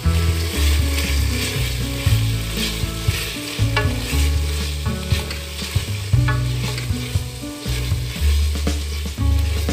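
Sliced onions sizzling in hot oil in a steel pot as a spatula stirs them, with a few sharp scrapes and knocks of the spatula against the pot, over background music with a steady bass line.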